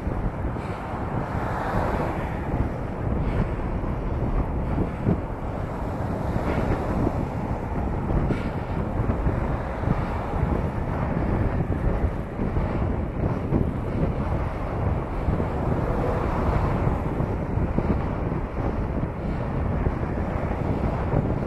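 Wind buffeting the microphone of a camera on a moving bicycle, a steady fluttering rush, with road traffic underneath.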